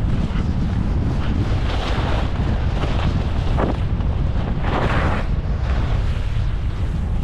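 Wind rushing over the camera microphone at skiing speed, with the swish of skis turning on snow every second or two.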